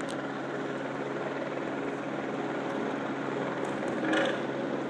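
Steady outdoor background noise with a low hum, and a brief louder sound about four seconds in.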